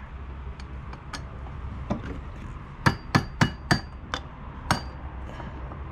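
Hammer tapping a shear pin into the propeller shaft of a Suzuki 2.5 HP outboard. A few light clicks come first, then about three seconds in six sharp metallic taps over about two seconds, a few with a short ring.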